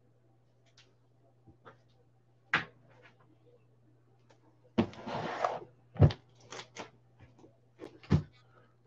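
Large shrink-wrapped cardboard memorabilia boxes being handled and set down on a wooden desk: a few scattered knocks and thumps, with a brief rustle of cardboard and plastic wrap sliding about five seconds in. A faint steady low hum sits underneath.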